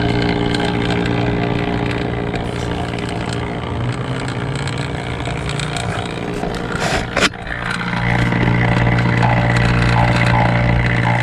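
HVAC refrigerant vacuum pump running steadily with a low hum, pulling a vacuum on a new air-conditioning condenser's refrigerant lines and coil. A brief knock about seven seconds in, after which the hum is louder.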